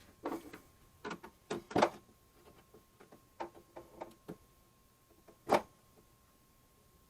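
A series of irregular clicks and knocks from handling tools, screws and a metal panel while fitting a radio and its service door, the loudest knocks about two seconds in and just past five seconds, over a faint steady high tone.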